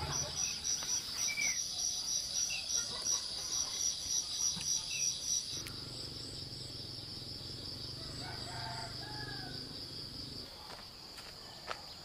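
Insects chirping in a steady high-pitched trill, pulsing about two to three times a second for the first half and then running on evenly. A few short bird chirps sound over it, and a rooster crows about eight seconds in.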